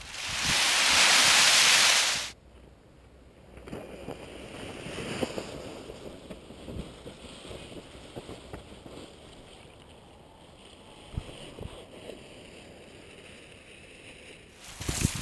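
Wind buffeting the microphone: a loud rush for about the first two seconds that cuts off abruptly, followed by a much fainter, gusting wind with scattered soft rustles.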